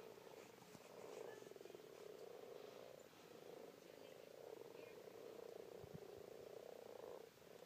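Breeding chorus of common frogs, a faint continuous low purring croak with a fine rapid pulse. It breaks briefly about three seconds in and stops shortly before the end.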